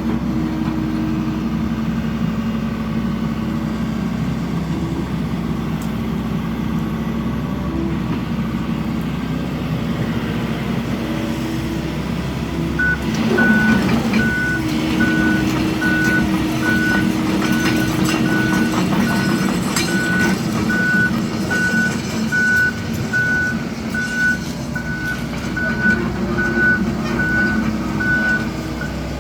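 Excavator's diesel engine running steadily. About halfway through the engine works harder and a travel alarm starts beeping, a little over once a second, as the machine moves on its tracks.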